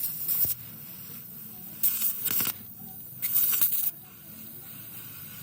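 Compressed air hissing in short bursts, each well under a second long: one ends just after the start, then two more come about a second and a half apart.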